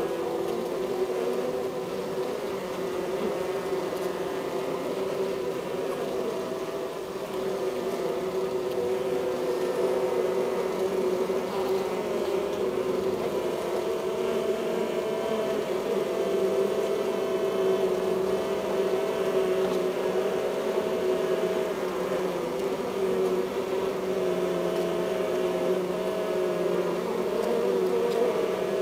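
Honeybee colony humming, heard from inside the hive: a steady drone of several held pitches, with a higher tone that comes and goes.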